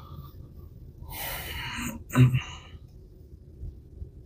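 A person's breathy sound: a noisy exhale or sniff lasting about a second, followed by a short low throat sound, over a faint steady low rumble.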